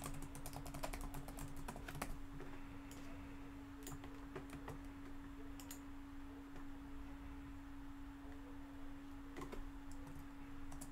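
Typing on a computer keyboard: a quick run of key clicks in the first couple of seconds, then scattered keystrokes, with a short burst about nine to ten seconds in. A steady low hum lies under the clicks.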